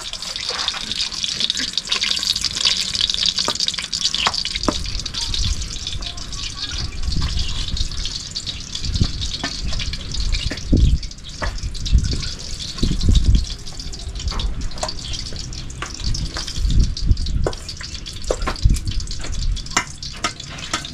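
Steady sizzling hiss from hot oil in cast-iron pots over a wood fire, with scattered crackles. The hiss is strongest for the first few seconds and then eases, and there are a few heavy low thumps in the middle.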